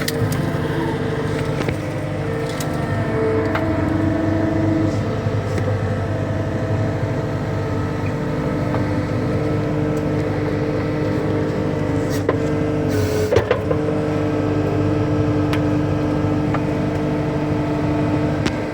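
Cat 259D skid steer's diesel engine running under load with a steady hydraulic whine that shifts pitch a few times as the grapple bucket works, and scattered sharp cracks and snaps of brush, the loudest about two-thirds of the way through.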